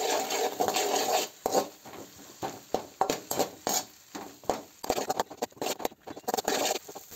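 A spatula scraping and knocking against an aluminium kadai as onion, capsicum, egg and ginger-garlic paste are stirred and sautéed in hot oil. It makes quick, irregular strokes, several a second, over the hiss of the frying.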